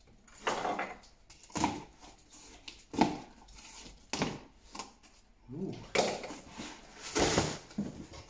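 A long cardboard box being handled on a wooden workbench, its packing tape slit open with a utility knife: a series of short scrapes, rustles and knocks about a second apart.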